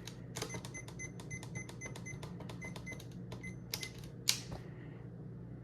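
Thermostat buttons pressed in quick succession, each press giving a short electronic beep, about five a second for three seconds, followed by a few louder clicks about four seconds in.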